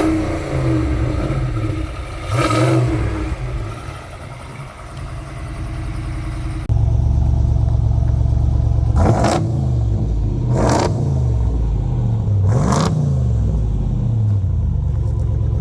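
Ram Power Wagon's 392 Hemi V8 idling and being revved: first with the stock exhaust, quieter, with one blip of the throttle; then, after a sudden cut about seven seconds in, louder and deeper through the new custom dual exhaust, revved three times.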